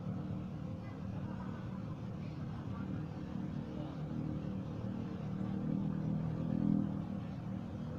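A steady low engine-like hum that swells slightly about six and a half seconds in.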